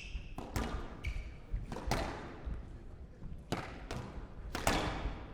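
Squash rally: the ball cracking off rackets and the court walls in a string of sharp, uneven knocks, roughly one or two a second.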